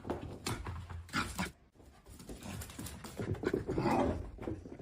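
A dog making short, irregular sounds.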